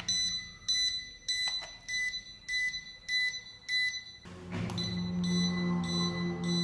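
Attop XT-1 drone remote controller beeping in pairing mode: a high electronic beep repeating a little under twice a second, the signal that it is waiting to connect with the drone. About four seconds in a steady low hum joins the beeps.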